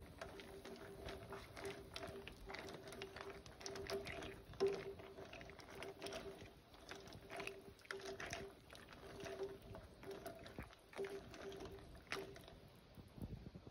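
Pot of water at a rolling boil with crab legs in it, bubbles popping and crackling, with plastic tongs stirring through it. A faint pulsing hum runs underneath.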